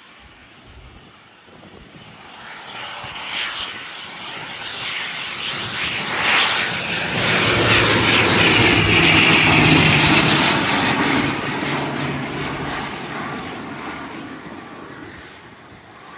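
An airplane's engines on landing approach passing by. The sound swells from faint to loud with a steady whine, is loudest about halfway through, then fades away.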